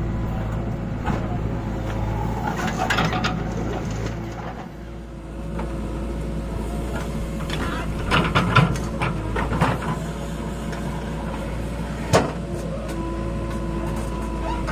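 Diesel engine of a JCB backhoe loader running steadily with its hydraulics working. Bursts of clatter and scraping come as the bucket digs and dumps soil into a tractor trolley, the loudest about eight to ten seconds in, with a single sharp knock about twelve seconds in.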